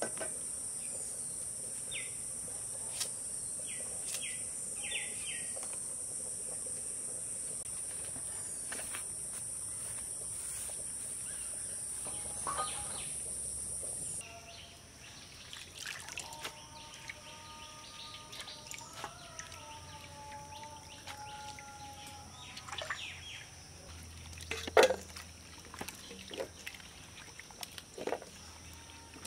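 Crickets trilling steadily with a few light clicks, stopping suddenly about halfway. Then birds calling, and pumpkin pieces splashing and sloshing in a bowl of water as they are washed by hand, loudest near the end.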